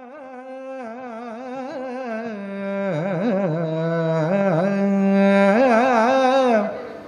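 A Kathakali singer drawing out a vowel in Carnatic style, one male voice holding notes and shaking and sliding around them in ornaments. The phrase grows louder and drops away near the end.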